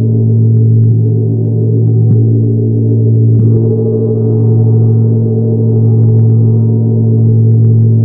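Tibetan gong ringing with a deep, sustained hum that swells and fades slowly. A few soft strokes renew it in the first half; the last, about three and a half seconds in, brings up brighter overtones.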